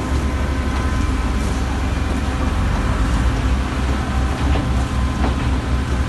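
Concrete pump running steadily as it pushes concrete through the steel delivery pipeline: a continuous low, pulsing rumble with a few faint knocks.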